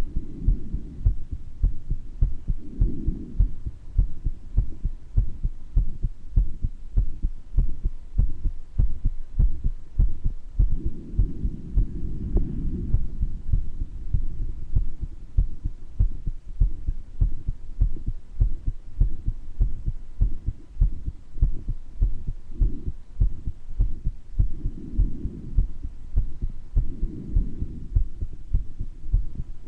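A close recording of a human heart beating steadily, a heart with a murmur, the lub-dub strokes low and even. Softer breath sounds swell in a few times, at about three seconds, around eleven to thirteen seconds and several times near the end, in someone with mild bronchitis.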